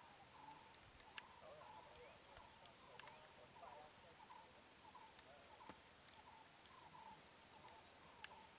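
Faint small birds chirping in short repeated calls, over a steady high-pitched whine, with four sharp clicks spread through.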